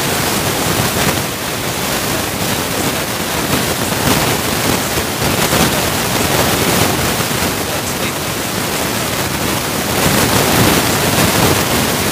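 Loud, steady hiss that fills the whole sound, with a man's voice faint beneath it.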